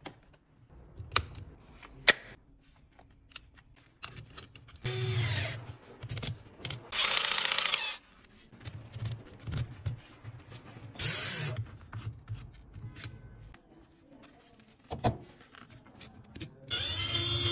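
GardenJoy 21V cordless drill/driver's motor running in four short bursts while a gloved hand grips the keyless chuck, spinning it to lock or release a bit. Sharp handling clicks come before the first burst and between the runs.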